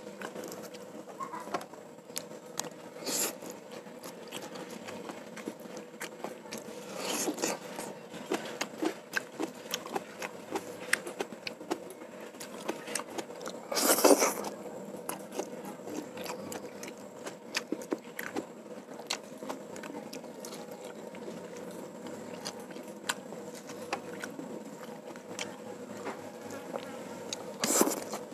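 Close-up eating sounds: wet chewing and lip smacks throughout, broken by several slurps of fried noodles. The loudest slurp comes about halfway through and another near the end.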